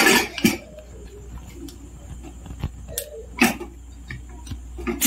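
Metal clanks and clicks of a stainless-steel Kitchen Essentials pressure cooker lid being fitted and closed: a cluster of knocks at the start, then a few sharp single clicks.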